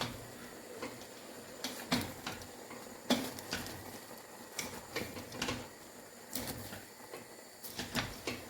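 A cooking utensil clinking and knocking against a pot at irregular intervals, about one or two sharp knocks a second, over a steady low hiss.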